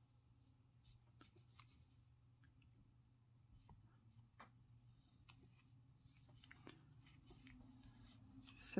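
Faint scratching and light scattered clicks of a metal crochet hook pulling bulky yarn through single crochet stitches, over a low steady hum, with a brief louder sound at the very end.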